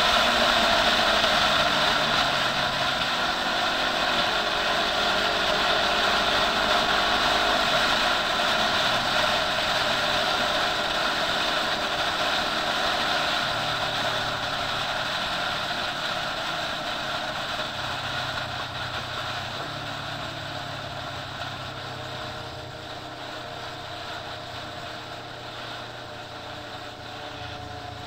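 Motorcycle engine running under way, heard over a steady rush of wind and road noise, its pitch drifting up and down with the throttle. The whole sound slowly grows quieter over the second half.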